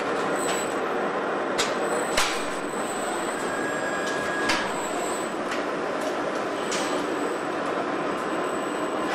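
Car assembly-line machinery noise: a steady mechanical din broken by a handful of sharp metallic clanks and clicks, with a brief high tone near the middle.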